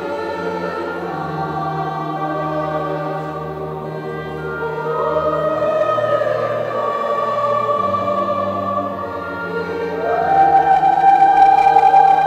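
Mixed choir of women's and men's voices singing a Latin Mass setting in slow, held chords, growing louder about ten seconds in.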